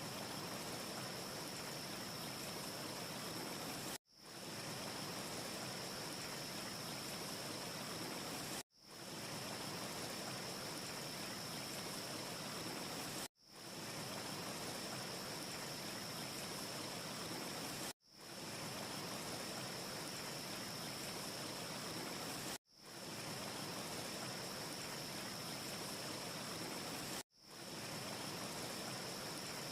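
Steady rushing noise of a looped ambience track billed as wind, with a faint high hiss running through it and no fire crackle. It cuts out for an instant and fades back in about every four and a half seconds, six times over, as the short loop restarts.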